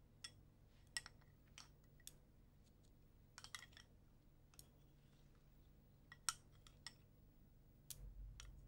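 Chopsticks tapping and clinking against porcelain bowls as people eat: scattered light, irregular clicks, faint, over a low steady hum.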